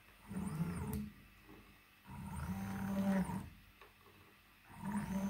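Stepper motors of a 3D-printed robot arm being jogged along one axis from the RAMPS controller, three short moves of about a second each. Each move has a steady low hum with a faint high whine that rises as the motor speeds up and falls as it slows.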